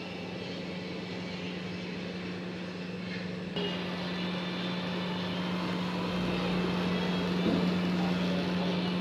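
A steady low mechanical hum over a background hiss, stepping up slightly in level about three and a half seconds in.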